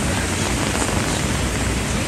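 Heavy typhoon rain pouring steadily, with a low rumble underneath.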